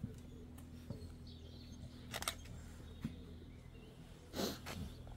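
Footsteps and scrapes on stone flagstones, with two louder scuffs about two seconds in and near the end, and faint bird chirps behind.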